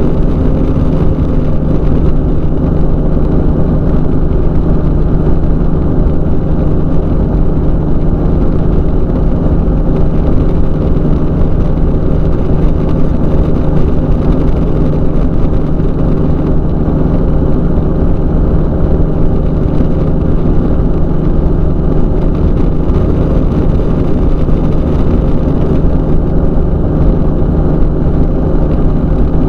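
Weight-shift microlight trike's engine and propeller running steadily in cruising flight, a constant drone with no change in pitch.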